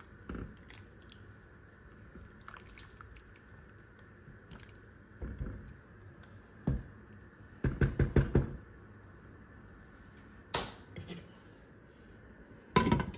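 Wooden spoon stirring and knocking against a pot of simmering banga (palm-nut) soup, with a quick run of about five knocks around eight seconds in. Near the end a glass lid clatters onto the pot, the loudest sound.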